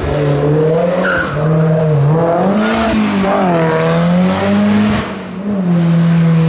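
Competition car's engine revving hard on a hillclimb, its pitch repeatedly climbing and dropping as it accelerates and lifts through the corners, easing briefly about five seconds in before pulling again.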